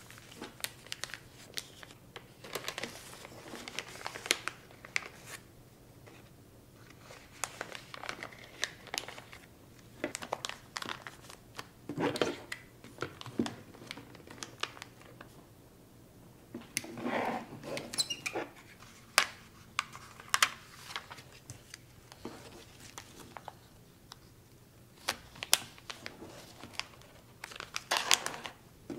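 Clear plastic gift bags crinkling and rustling as they are handled and closed with a hand-held clip heat sealer, with scattered short sharp clicks and taps.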